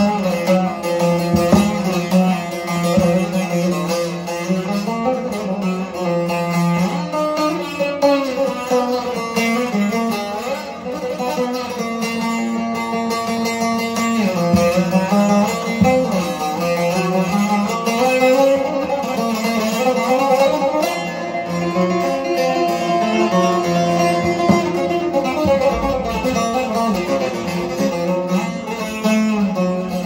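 Bağlama (long-necked Turkish saz) played solo: a plucked improvisation in makam Nihavend, one melodic line that winds up and down and bends between notes.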